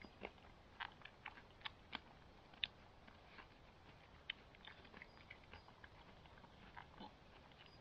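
Faint close-up chewing: a person eating, with soft irregular clicks and crunches about two a second.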